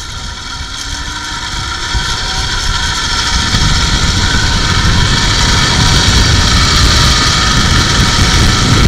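A zipline trolley runs along the steel cable, with wind rushing over the microphone. The noise builds over the first few seconds as the rider gathers speed, then holds steady.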